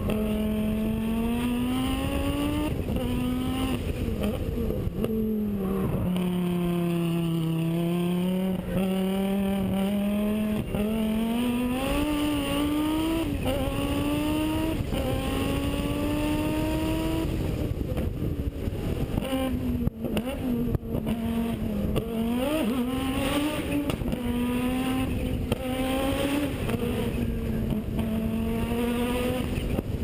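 Audi quattro rally car's turbocharged five-cylinder engine at full effort, heard from a camera on the car's body. Its pitch climbs and drops back over and over as it accelerates and changes gear, with a brief lift and a couple of sharp cracks about two-thirds of the way in.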